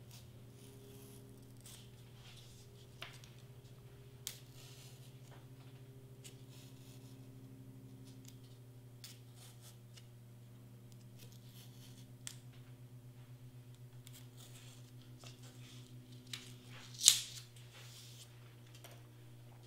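Faint, scattered scratches and clicks of a pen tracing an outline on foam board, over a steady low hum. One sharper click comes about seventeen seconds in.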